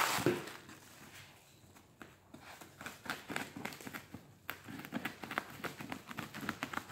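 Bubble wrap being handled and peeled off a cardboard box, crinkling in many short irregular crackles, with a louder burst at the start and denser crinkling again from about halfway through.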